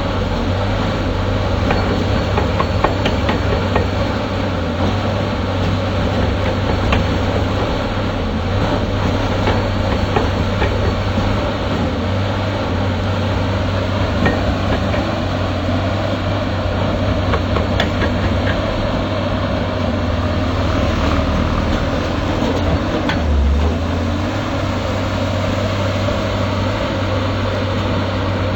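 Excavator at work: its diesel engine running steadily, with frequent metallic clanks and knocks over the top.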